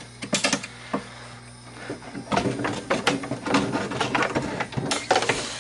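A few separate clicks, then from about two seconds in a busy run of clinks, knocks and rattles: metal parts being handled and bumped as a snowmobile engine is worked into place in its chassis.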